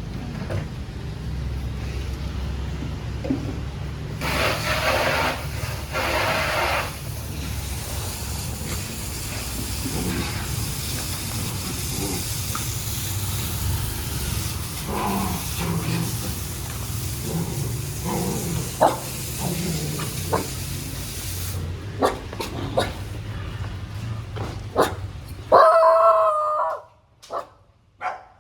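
A rooster crows a few seconds in over a steady low rumble, with scattered short sounds after it. Near the end a puppy gives a loud yelp.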